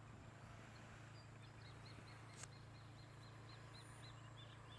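Faint outdoor quiet with a bird giving a run of short, high chirps, about three a second, starting about a second and a half in. A single faint click partway through.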